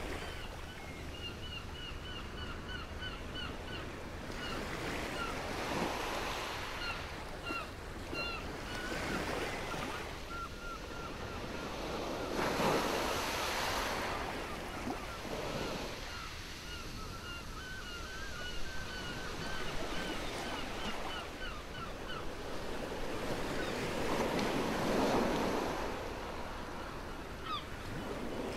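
Baltic Sea waves washing onto a stony shore, the surf swelling every few seconds and loudest about halfway through and again near the end. A bird calls over it in quick runs of short repeated chirps.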